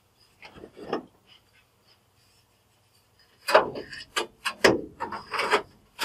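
Old gasket residue being scraped off the furnace where the inducer motor mounts: a couple of faint scrapes about half a second in, then a run of louder, quick scraping strokes from about three and a half seconds.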